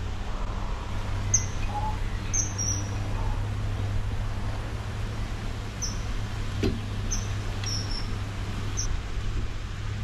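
Birds chirping: short, high single notes scattered through, over a steady low rumble. One sharp knock about two-thirds of the way in.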